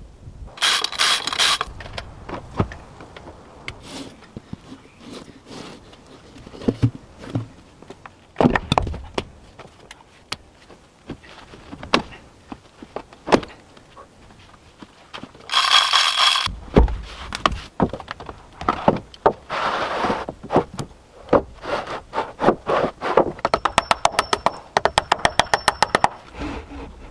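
Hands-on building work with wood and tools: scattered knocks, thunks and scrapes. Two short whirring bursts come early and again about halfway through, and a fast, even run of clicks comes near the end.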